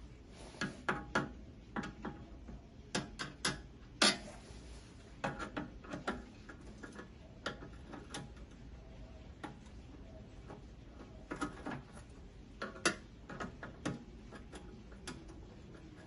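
Irregular light clicks and taps of a screwdriver and wire ends working at a terminal block inside a stainless-steel griddle housing, sometimes single and sometimes in quick clusters.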